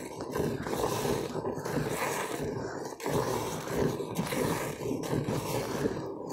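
A cow being milked by hand: streams of milk squirting into a metal pail in a quick, rhythmic hissing.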